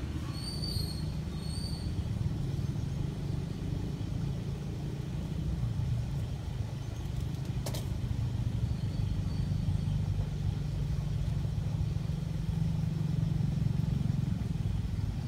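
A steady low rumble of outdoor background noise, with a few short high chirps in the first second or two and a single sharp click about halfway through.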